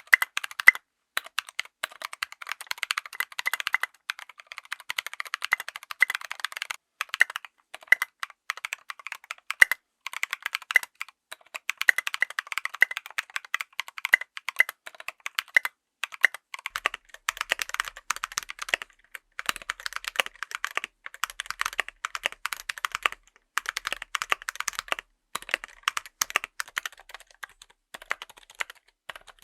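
Steady typing on a full-size mechanical keyboard fitted with tactile switches: quick, irregular keystroke clacks with brief pauses.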